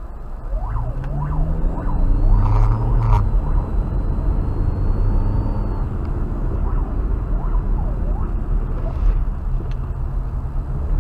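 Police car siren giving quick rising-and-falling whoops in two bursts, about a second in and again past the middle, over the engine and road drone of the car behind it, which rises in pitch for a couple of seconds as it speeds up.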